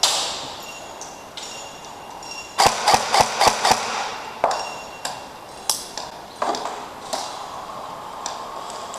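Airsoft gunfire: a sharp shot with a ringing metallic ping, then a quick string of about six shots a little under three seconds in, followed by scattered single shots.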